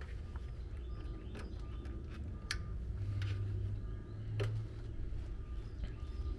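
Several small clicks and taps as multimeter test leads are handled and clipped onto a dual run capacitor's terminals, over a low steady rumble.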